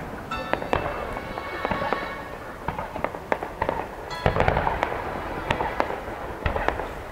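Aerial fireworks bursting: a run of sharp bangs and crackles from golden falling-spark shells, the loudest bang about four seconds in.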